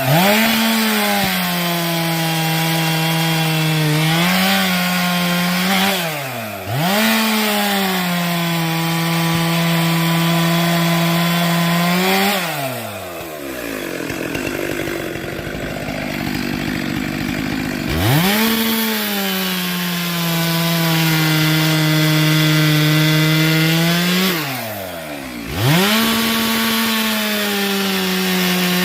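Two-stroke chainsaw held at full throttle as it cuts firewood, its high engine note sagging briefly under load. Three times the revs drop sharply and climb back up between cuts, about six seconds in, after about twelve seconds, and about twenty-five seconds in. The middle drop is a longer spell of about five seconds running low and rough before it revs up again.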